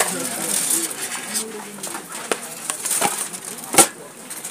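Metal serving spoon knocking and clinking against pots and plates as food is dished out, a few sharp knocks with the loudest near the end, over faint background voices.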